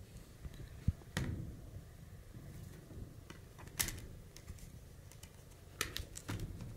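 Scattered light clicks and taps of a Blu-ray disc and its clear plastic tray being handled. There are sharp clicks about a second in, again near four seconds, and a quick cluster near the end.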